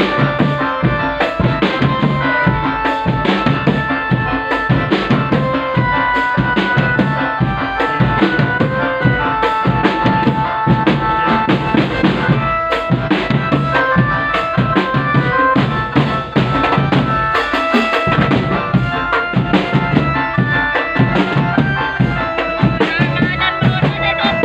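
Drum band playing: dense, fast drumming on bass and snare drums under a melody line, with a brief drop about two-thirds of the way through.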